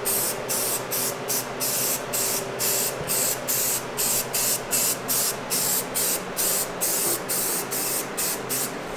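Aerosol spray can of primer hissing in short, quick bursts, about two or three a second, as a light first tack coat is laid on.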